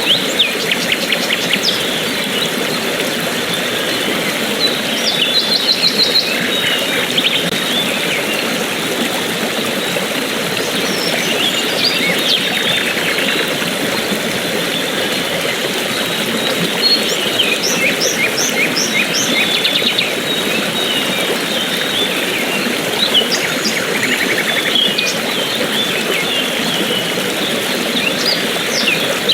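Steady rush of flowing water from a stream or waterfall, with songbirds chirping and trilling over it in short bursts every few seconds.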